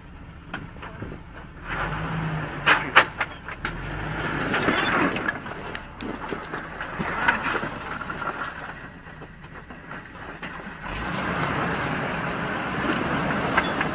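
Off-road truck's engine revving in surges as it crawls up a rock ledge, with a few sharp knocks early on.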